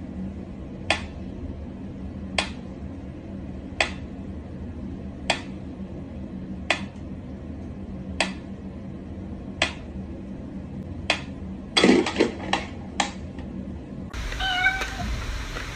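Mechanical pendulum metronome ticking slowly and evenly, about one tick every second and a half. A few louder knocks and rustles come near 12 seconds, and a cat meows near the end.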